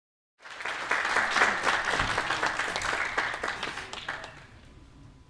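Audience applauding, starting about half a second in and dying away after about four seconds.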